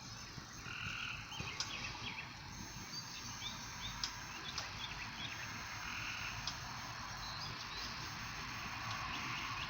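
Frogs calling: short croaking trills, the clearest about a second in and again about six seconds in, among scattered brief chirps, over a steady low rumble.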